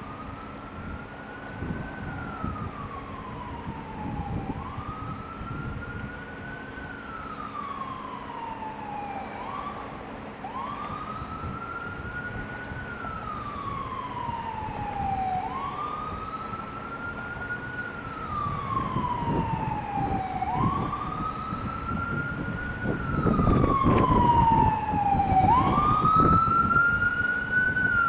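Whelen WPS-2910 electronic outdoor warning siren sounding its monthly test tone. Each cycle sweeps quickly up, then glides slowly down in pitch, repeating about every five seconds. It grows louder toward the end.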